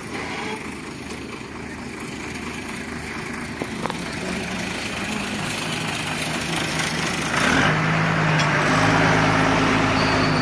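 Diesel engine of a dump truck idling steadily. It gets clearly louder about seven and a half seconds in, as the truck comes close.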